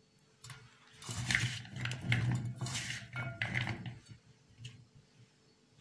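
Raw potato sticks being tossed and turned by hand in a stainless steel bowl: a wet, jostling clatter of potato against potato and metal for about three seconds, stopping about four seconds in.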